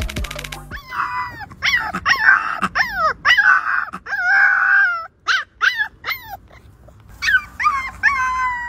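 Husky puppy howling: a run of short, high cries that fall in pitch, then a pause, then a longer drawn-out howl near the end.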